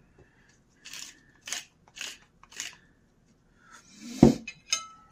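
Wooden pepper mill grinding in four short rasps about half a second apart. About four seconds in comes a thud, then a metal fork clinks on a ceramic plate, which rings briefly.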